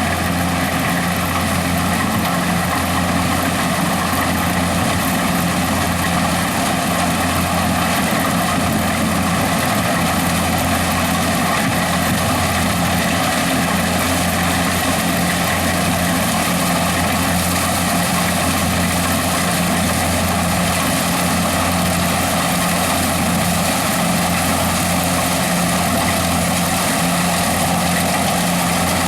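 Corn harvester's engine and machinery running, a loud hum that holds one steady pitch.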